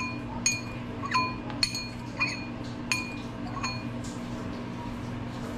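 Metal fork clinking against a ceramic bowl of squeezed lemon juice while lemon seeds are fished out: about seven light, ringing taps, irregularly spaced, stopping about three and a half seconds in.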